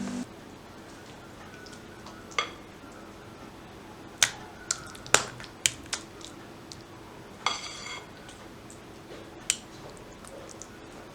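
Sharp, separate clicks and taps of kitchenware, about eight spread over several seconds, with a cluster about four to six seconds in. One, about seven and a half seconds in, rings briefly like struck dishware.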